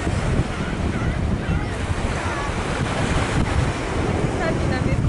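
Wind buffeting the microphone: a loud, gusty low rumble that never lets up.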